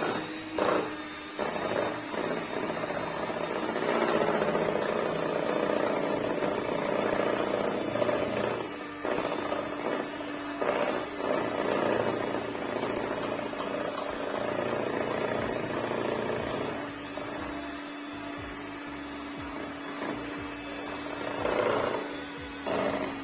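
Electric hand mixer running steadily, its motor whining as it beats cake batter in a bowl, with a few brief changes in the sound as the beaters move through the mixture.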